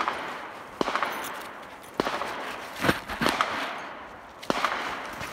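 Gunshots at a shooting range: about six sharp cracks at irregular spacing, each trailing off in a long echo.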